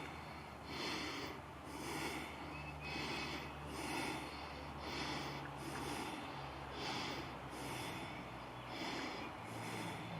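A man's heavy, rhythmic breathing close to the microphone, about one breath a second.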